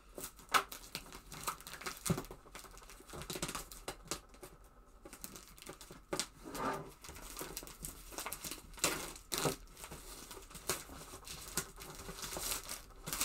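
Clear plastic shrink-wrap being slit and peeled off a cardboard power-supply box, crinkling and tearing in irregular bursts, with small taps and scrapes of fingers on the box.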